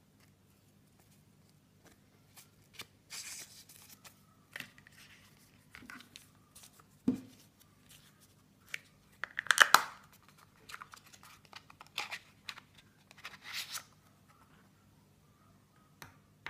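Plastic and paper packaging of a screen protector kit handled by hand: scattered crinkling and rustling, with a soft knock about halfway through and the loudest crinkle a little after it.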